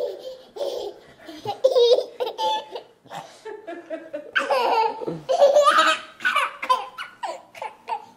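A toddler and an adult laughing in short repeated bursts, loudest around the middle.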